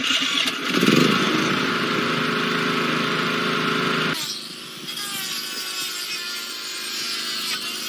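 Small portable petrol generator engine running steadily. About four seconds in, it cuts to a quieter electric power tool whirring with a wavering whine as it works into a wooden plank.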